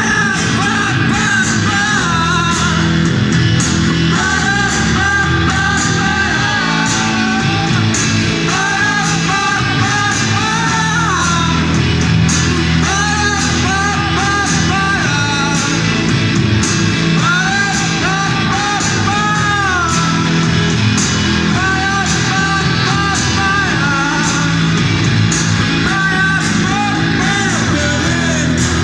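Live pop band playing: sung vocal phrases over electric guitar and keyboard with a steady bass line and beat.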